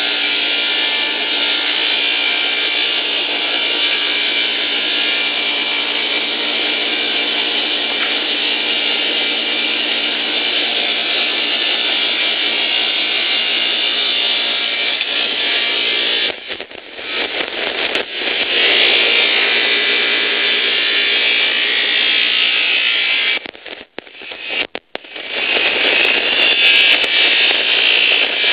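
Sawing machine running and ripping wooden boards fed through it: a loud, steady saw noise. The noise dips briefly about two-thirds through and cuts out for a moment near the end before picking up again.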